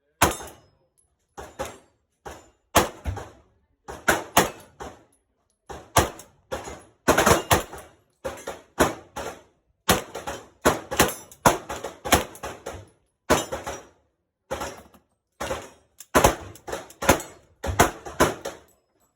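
Canik METE SF 9mm pistol shots in quick strings of two to four, about forty shots in all, each with a short echo off the range walls.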